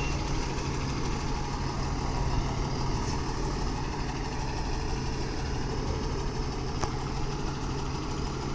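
A Tata truck's diesel engine running steadily at idle, with a low, even hum.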